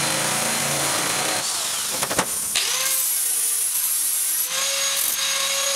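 An electric sheet-metal cutter runs through thin steel sheet with a rough, grating noise for about a second and a half. About two seconds in, an angle grinder starts and then runs with a steady whine.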